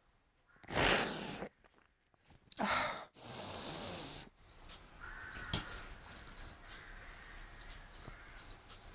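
A woman crying: sobbing breaths about one second and three seconds in, and a longer breath right after, then only faint small sounds.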